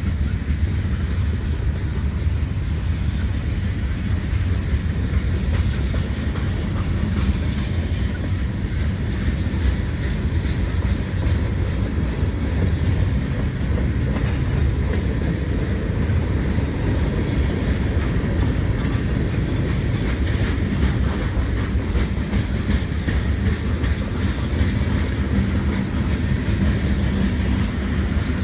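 Freight cars of a long mixed freight train rolling past, a steady heavy wheel rumble and rattle with scattered sharp metallic clicks and brief squeaks from the wheels.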